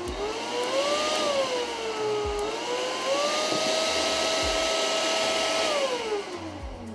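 Oneisall pet grooming vacuum running at its highest suction and pulling dog hair off the brush attachment into the hose. Its motor whine rises and dips in pitch during the first three seconds, holds steady, then winds down near the end as it is switched off.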